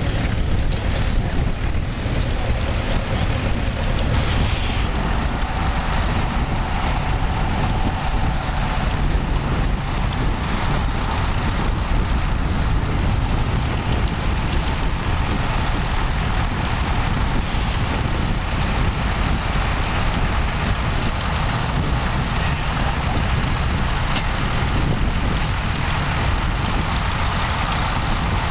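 Vintage tractor engine running steadily under a heavy low rumble.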